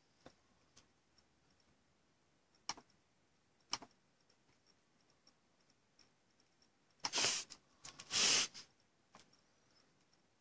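Quiet room with a few scattered sharp clicks and two brief rustling noises about seven and eight seconds in, like small objects being handled on a desk.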